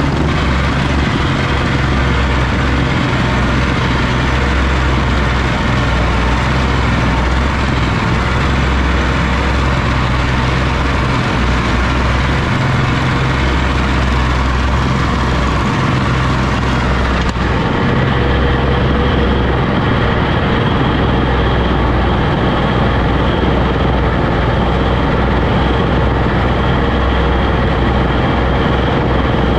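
Oliver OC-6 crawler tractor's engine running steadily, with a constant low drone; about seventeen seconds in the sound turns duller as the high end falls away.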